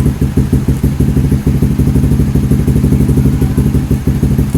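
A vehicle engine running steadily at idle, loud, with a fast, even pulsing beat.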